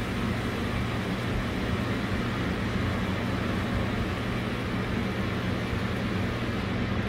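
Steady rain noise with a steady low hum underneath.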